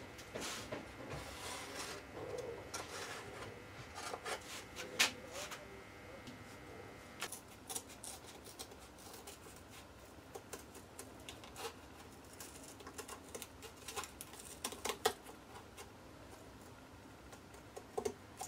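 Hand scissors cutting through thin cardboard: a run of short, irregular snips and crunches, with the cardboard rubbing and being handled.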